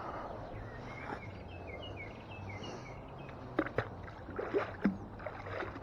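Knocks and scrapes of a magnet-fishing haul being handled, with a waterlogged carpet caught on the magnet, over a steady low hum. A short run of high chirps comes in the first half, and several sharp knocks follow in the second half.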